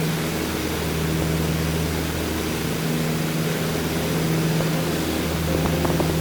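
Steady drone of the Piper PA-30 Twin Comanche's two four-cylinder Lycoming engines and propellers in cruise flight, over a broad rushing hiss. The hum slowly swells and fades every couple of seconds.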